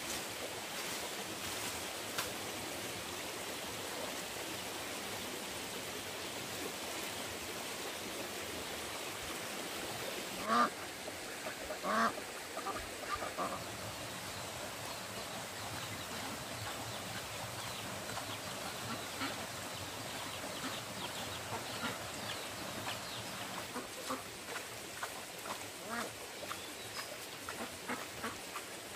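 Farm waterfowl calling over a steady background hiss: two loud calls about ten and twelve seconds in, a few quieter ones just after, and a run of short calls near the end.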